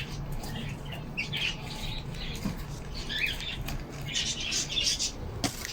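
Birds in a pigeon loft chirping and flapping their wings in short scattered bursts, busiest about four to five seconds in, over a faint steady low hum.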